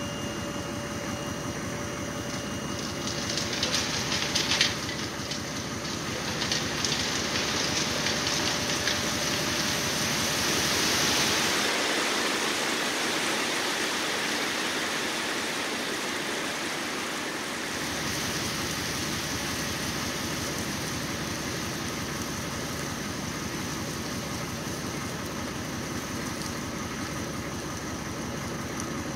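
Crushed rock sliding out of a raised dump truck bed over the tailgate, a rattling, rushing pour that is loudest about ten seconds in and then eases off, over the truck's engine running steadily.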